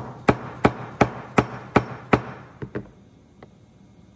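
Seven sharp metal knocks, about three a second, then two lighter ones and a faint tap: a ball-joint stud with a socket over it being struck down on a steel workbench to press a tapered roller bearing onto the stud.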